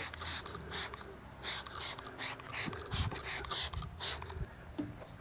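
Hand trigger spray bottle spritzing about a dozen short sprays in quick succession onto a panel, over a steady high chirring of insects.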